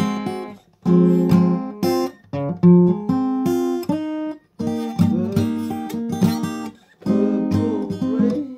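Acoustic guitar strumming chords, breaking off briefly several times between phrases.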